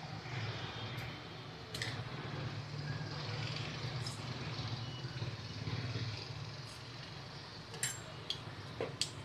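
Mustard seeds in hot oil in a kadhai give a few sharp pops near the end as they begin to splutter for the tempering. Under them runs a steady low rumble.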